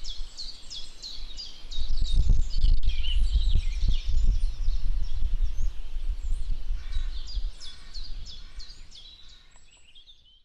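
Birds chirping in a fast, steady run of repeated high, down-sweeping notes. A low rumble comes in about two seconds in and is the loudest sound until it dies away, and everything fades out near the end.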